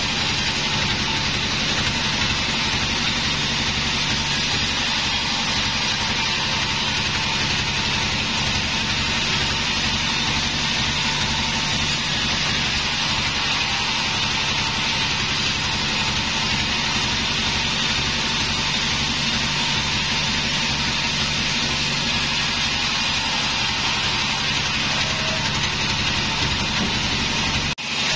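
Band sawmill (gergaji selendang) running steadily, its band blade ripping through timber as a board is fed past it. The sound drops out for a moment near the end.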